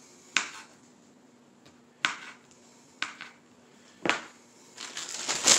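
Kitchen knife chopping through hot dogs and knocking on the countertop under a paper towel: four sharp chops about a second apart.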